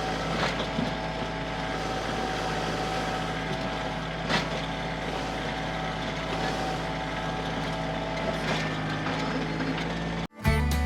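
Diesel engine of an earthmoving machine running steadily while working dirt, with scattered knocks and a sharp clank about four seconds in. Just before the end it cuts off abruptly into acoustic guitar music.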